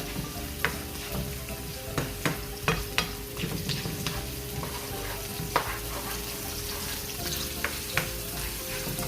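Garlic, onion and spring onion sizzling in hot oil in a pan while being stirred. The utensil clicks sharply against the pan about nine times.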